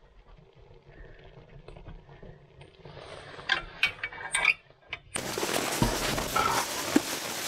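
Wood stove being lit and fed: soft rustling of paper and kindling, with a few sharp knocks of wood against the cast-iron stove. About five seconds in, this cuts suddenly to a pack of Siberian huskies moving about close by, a loud, dense commotion with some yelps.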